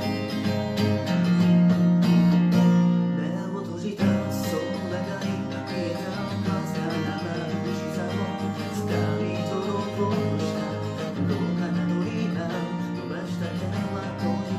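Acoustic guitar strummed in chords, with a brief break and a fresh accented strum about four seconds in.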